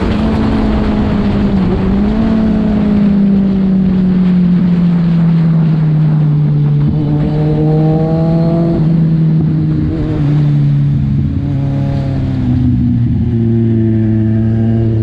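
Kawasaki Z1000 inline-four engine and exhaust heard from the rider's seat while riding. The revs sink slowly as the bike rolls off the throttle, with a small rise about two seconds in, over a rush of wind noise.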